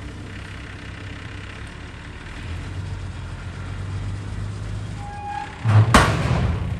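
Heavy truck engine running steadily at a low rumble, with a sudden loud burst of noise near the end.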